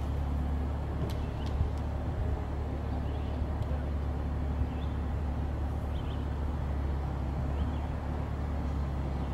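Steady low mechanical hum of outdoor background noise, with a few faint high chirps and a couple of light clicks.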